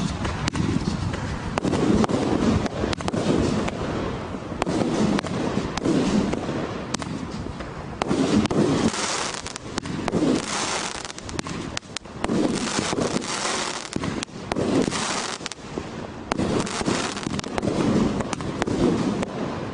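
A 36-shot fan cake firework firing shot after shot, with a launch thump about once a second and bursts of high crackle and hiss between the launches.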